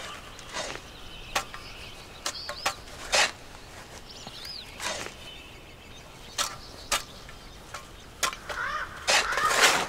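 A long-handled digging tool struck into the ground again and again at an uneven pace, a string of sharp hits with the heaviest cluster near the end. Birds chirp now and then between the strikes.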